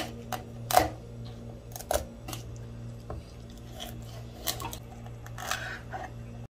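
Kitchen knife cutting sardines on a wooden cutting board: irregular sharp knocks of the blade against the board, the loudest in the first two seconds, over a steady low hum.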